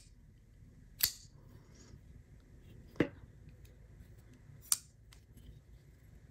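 Kunwu Tao Compact flipper folding knife being flicked open and closed: three sharp metallic clicks about one, three and nearly five seconds in, as the blade snaps open and shut on its pivot.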